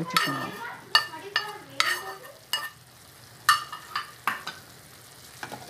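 A metal spoon scraping and knocking against a non-stick frying pan as fried onions, tomato and coconut pieces are tipped into a steel blender jar: a string of short, sharp scrapes and clinks, thinning out near the end.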